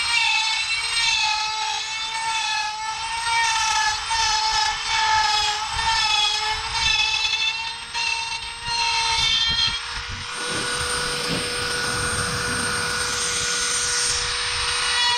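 Small electric motor running with a steady whine; about ten seconds in, a rougher, noisier sound joins it while the whine carries on.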